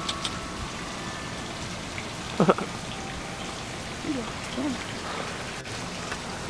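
Steady hiss of splashing water, as from a garden fountain. About two and a half seconds in comes one short voice-like sound that slides up and back down in pitch, with two fainter ones a little later.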